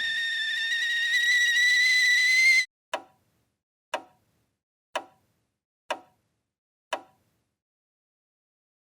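A steady high whistling tone, rising slightly in pitch, cuts off suddenly a little over two and a half seconds in. Five short sharp ticks follow, about a second apart.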